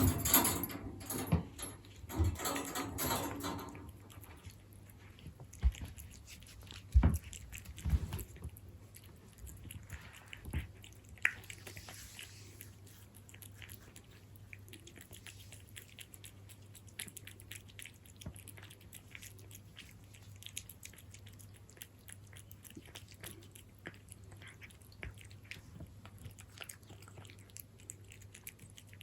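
A cat eating wet food in jelly: chewing with many small, quick wet clicks. It is louder in the first few seconds, with a few sharp knocks around seven to eight seconds in.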